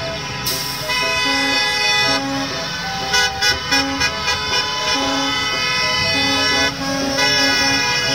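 Several school bus horns honking on and off and overlapping as a line of yellow school buses pulls away, over the buses' engines.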